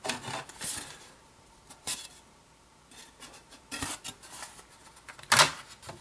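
HP EliteBook 850 laptop's bottom cover panel being slid and pressed back onto the base: rubbing and scraping with a few sharp clicks and knocks, the loudest near the end.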